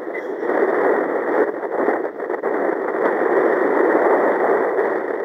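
Loud, steady rushing of wind buffeting a microphone, swelling about a second in and easing near the end.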